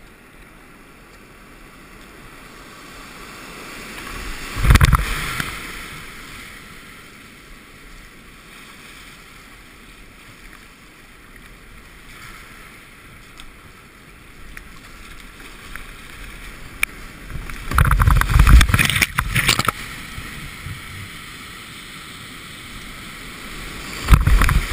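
Whitewater kayak on river rapids: a steady rush of moving water with loud splashes about five seconds in, again around the eighteen-to-twenty-second mark, and near the end as the boat drops into foaming whitewater.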